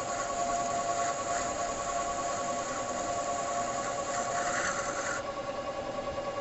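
Metal-working lathe running with a steady whine, while the cutting tool cuts the spinning metal bar with a high hiss and scraping that stops about five seconds in.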